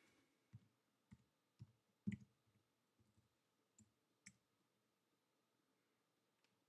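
About half a dozen faint, isolated keystrokes on a computer keyboard, spaced irregularly with near silence between them, as a short expression is typed.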